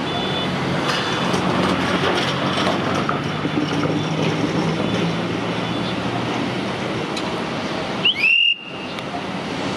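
Steady low hum of a standing locomotive running. About eight seconds in, a brief high tone rises sharply and cuts off suddenly.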